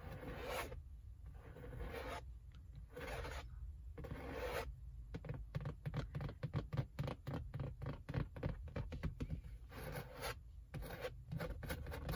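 Long fingernails scratching across a Mustang's black leather car seat: several slow strokes of about half a second each, then a fast run of short, quick scratches in the second half.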